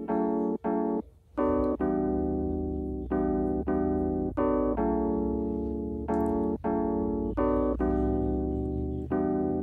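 Background music of electric piano chords, struck again every half second to a second, each chord fading before the next.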